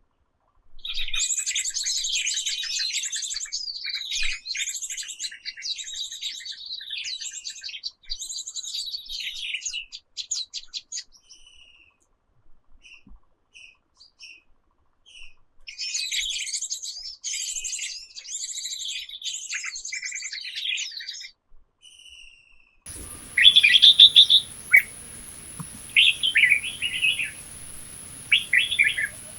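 Small birds singing in dense, high chirping song in two long stretches, with scattered single chirps between. About two-thirds of the way through, the background changes to a steady hiss with a constant high-pitched whine, and louder separate bird calls come over it.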